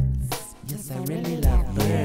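Music: a passage of the song with a drum beat and bass under a melody line that slides up and down in pitch.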